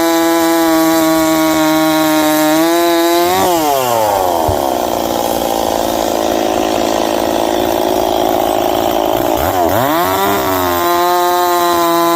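Ported Stihl 026 two-stroke chainsaw running at high revs. A few seconds in, its pitch drops sharply as the chain bites into an ash log, and it saws through the wood for about six seconds. Near the end it revs back up to full speed as the cut frees.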